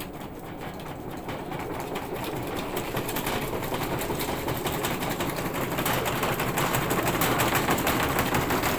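Washing machine shaking violently in its spin, a fast, continuous rattling and knocking that grows steadily louder as the spin builds up.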